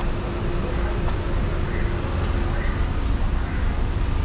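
Street traffic noise: a steady low rumble of cars on the road, with a steady hum running through it.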